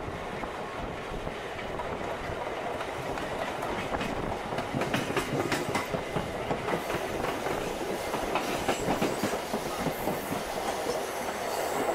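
Passenger train coaches rolling past close by as the train gathers speed, wheels clattering over rail joints. The clickety-clack turns sharper and louder from about four seconds in.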